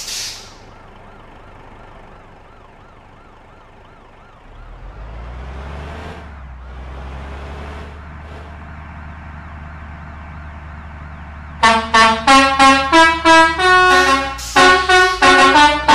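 A bus's multi-tone telolet air horn. A faint warbling, siren-like tone and a short hiss come first, then a low rumble builds from about four seconds in. About twelve seconds in, the horn starts playing a loud, quick melody of short toots, changing note about three times a second.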